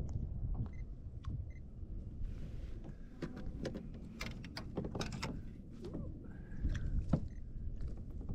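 Wind rumbling on the microphone, with scattered small clicks and knocks as the fish and rod are handled in the kayak, bunched in the second half.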